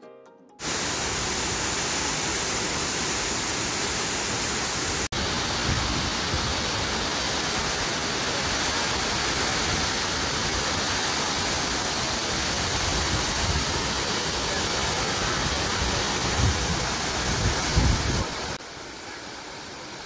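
Waterfall rushing: a steady roar of falling water, broken for an instant about five seconds in, with a few low bumps near the end before it drops to a quieter rush.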